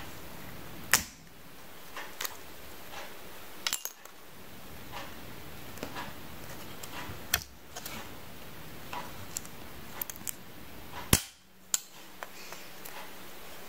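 Red plastic Beyblade spin gear parts being twisted and snapped off their plastic runner: a few sharp plastic snaps, the loudest about eleven seconds in, with lighter clicks and rattles of the handled plastic between them.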